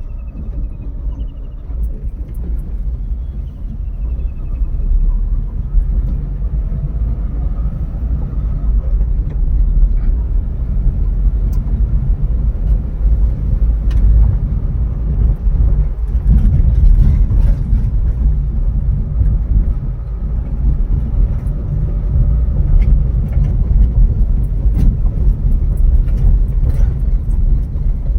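A car driving, giving a steady low rumble of engine and road noise.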